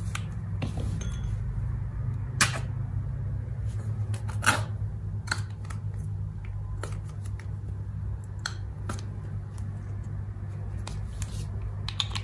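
Slime being squeezed and stretched by hand, giving scattered sharp clicks and pops, the loudest about two and a half and four and a half seconds in, over a steady low hum.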